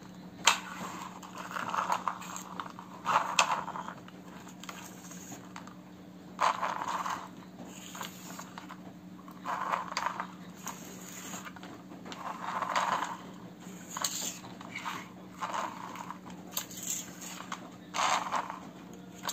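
Plastic toy excavator bucket scraped and tapped across a hard, dusty floor by hand: a series of short, irregular scrapes with clicks in between, over a steady low hum.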